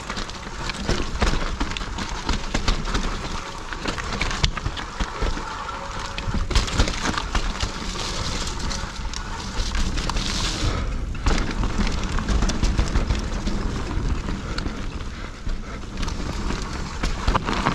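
Mountain bike riding fast down a dirt and gravel trail, heard from a rider-mounted camera: wind buffeting the microphone in an uneven rumble, tyres rolling over loose stones, and the bike rattling with many small knocks.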